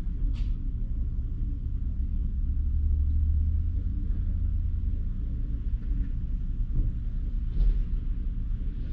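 A car driving, heard as a steady low rumble of engine and road noise, with a faint short click about half a second in and another near the end.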